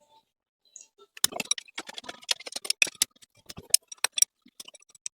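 Rapid, irregular metallic clicking and clinking of a spanner working the engine-mount bolts, starting about a second in.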